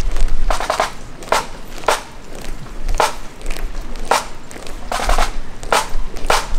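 Pipe band marching with the pipes silent: sharp taps at a steady marching pace, about one every half-second to second, with a low rumble underneath.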